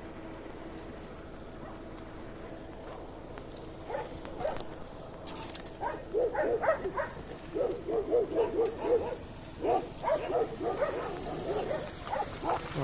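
A dog whining and yipping in a quick string of short cries, starting about four seconds in and coming thickest in the second half.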